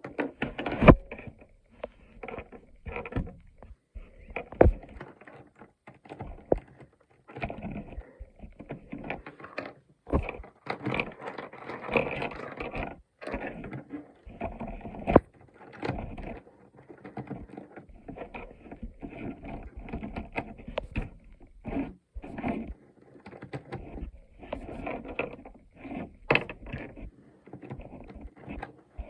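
Plastic Rubik's cube being worked apart piece by piece by hand: irregular clicks, knocks and snaps of the plastic pieces, with scraping as they are twisted and pried.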